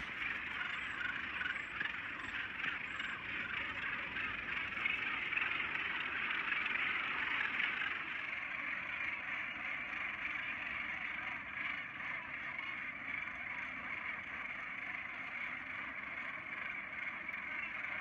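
Northern gannet nesting colony: the steady, dense din of many birds calling at once.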